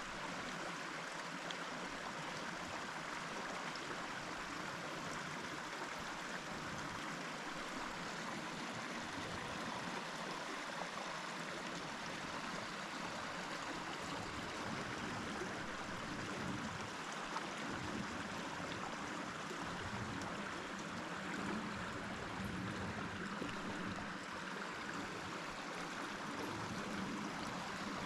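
Steady rush of a running stream, an even noise that holds at the same level throughout.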